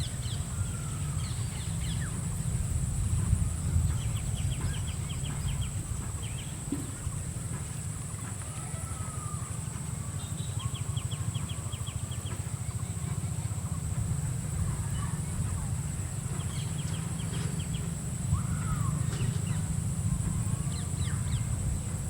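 Outdoor natural ambience: scattered bird calls, including three short, rapid rattling trills, over a steady high drone and a low rumble.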